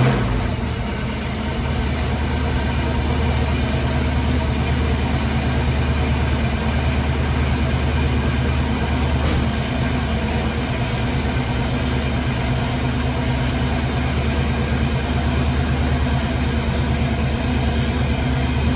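Chevrolet 350 small-block V8 in a squarebody K10 pickup idling steadily, just fired up for its first run after fresh fluids and a dry fuel system. It is a little louder in the first second, then settles into an even idle.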